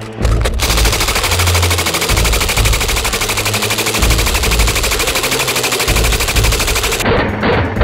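Chopped-down RPD light machine gun in 7.62x39 with a Dead Air Wolverine PBS-1 suppressor firing on full auto. A few quick shots come first, then one long continuous burst at a steady rapid rate that stops about seven seconds in.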